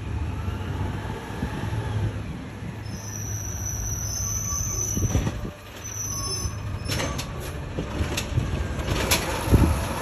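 Diesel engine of an automated side-loader garbage truck running steadily as it pulls up, with a high hiss partway through. In the second half come several sharp clunks, the loudest near the end, as the truck's mechanical arm grabs and lifts a recycling bin.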